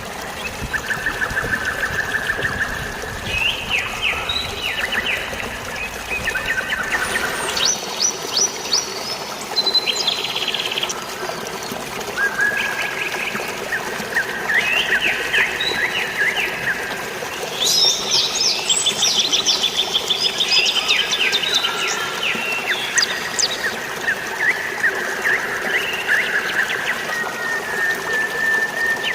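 Several birds chirping and trilling in quick repeated-note phrases, one after another, over a steady rush of flowing water.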